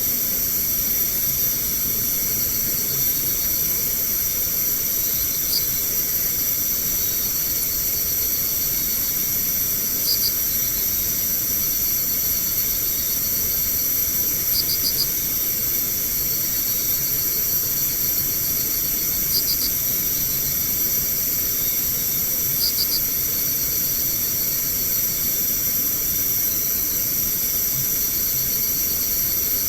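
Night insect chorus: a steady, high-pitched shrill of several insects at different pitches, with a short burst of two or three quick chirps repeating about every four to five seconds.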